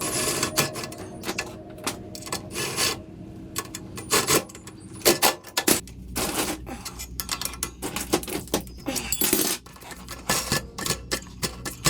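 Irregular metallic clinks, taps and knocks of hand tools and small metal parts being handled, with a low steady hum joining about halfway through.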